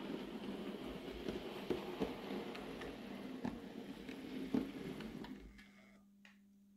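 Model electric locomotive running in along the track, its motor whirring and wheels ticking over rail joints and points. The running noise dies away as it slows to a stop about five and a half seconds in, leaving a faint steady hum.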